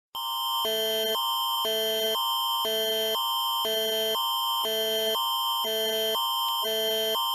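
Canadian Alert Ready attention signal: a steady high tone held under two chords that alternate every half second, high then low, in a repeating warble. It starts abruptly just after the spoken alert ends.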